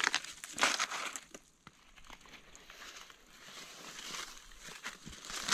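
Rustling and crackling of leaves and undergrowth being brushed and handled, with many small clicks in the first second, dying down to a faint rustle in the middle and building again near the end.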